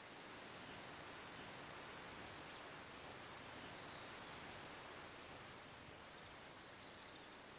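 Faint steady background hiss with a thin, high, steady tone running through it; no distinct sound events.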